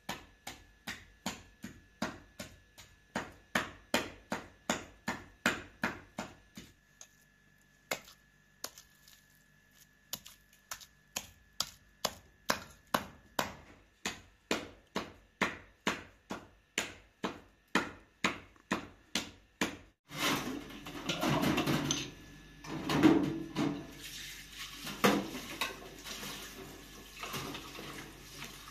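Rhythmic chopping, a knife striking a cutting board about three times a second, with a short pause in the middle. About two-thirds of the way through it gives way to louder running water with splashing.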